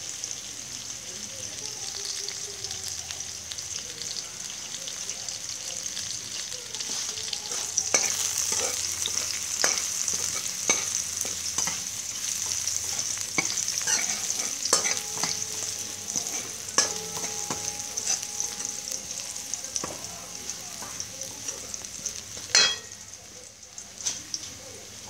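Minced garlic sizzling in hot oil in a wok. From about a third of the way in, a metal ladle scrapes and knocks against the wok as the garlic is stirred, with one loud knock near the end, after which the sizzle dies down.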